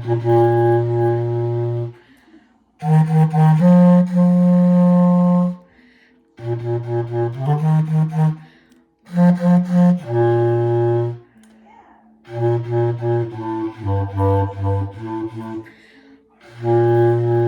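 A single low-pitched wind instrument playing alone: phrases of held notes, some tongued in quick repeats, broken by rests of about a second.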